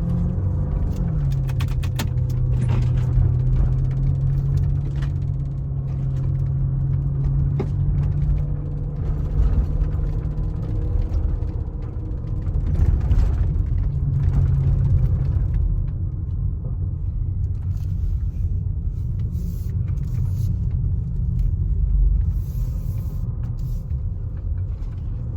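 Lamborghini Urus's twin-turbo V8 running at low speed over a rough, overgrown track, with a steady low rumble and a brief rev right at the start. Scattered sharp scrapes and snaps of branches brushing against the body.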